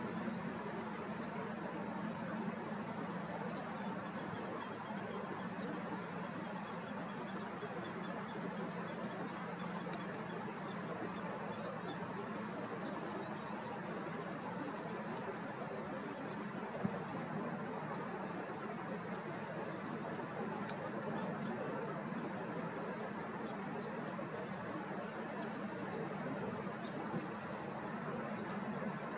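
Steady outdoor background noise: an even hiss under a constant high-pitched whine, with one faint click about 17 seconds in.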